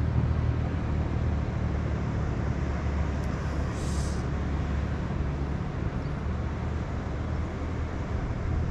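Steady low outdoor rumble, with one brief high hiss about four seconds in.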